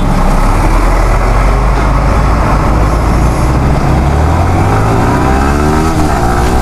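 Yamaha R15 V3's 155 cc single-cylinder engine accelerating hard, its pitch climbing through the second half and dipping at a gear change near the end before climbing again, under a steady rush of wind on the microphone.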